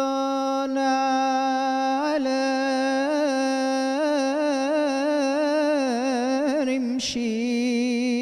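A man singing an Arabic song, unaccompanied, into a microphone: he holds one long steady note for about two seconds, then draws it out in wavering melismatic ornaments. There is a short break for breath about seven seconds in.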